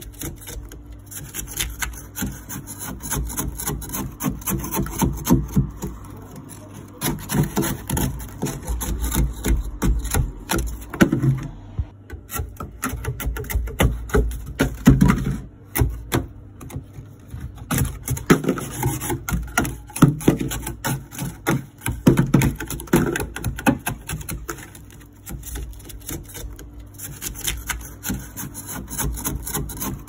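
Kitchen knife blade scraping and chipping thick ice off the inside walls of a freezer, in quick, irregular rasping strokes with a couple of brief pauses.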